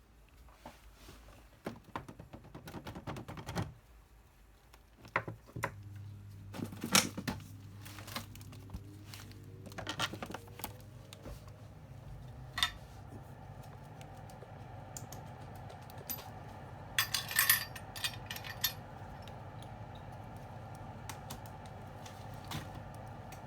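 Small tools clicking and tapping on a workbench, then a small motor starts about five seconds in, its pitch rising for several seconds before it runs steadily, with a quick run of clicks later on.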